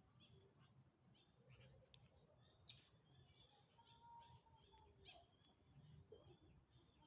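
Faint, scattered bird chirps against near silence, with one brief louder sound a little under three seconds in.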